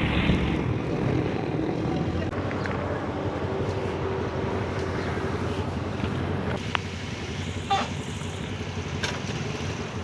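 Motorcycle engine running steadily while riding, mixed with road and wind noise, and a few short sharp sounds in the second half.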